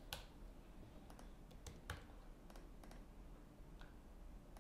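Faint, scattered clicks of a computer keyboard and mouse, about seven in all, spaced unevenly, over a quiet room.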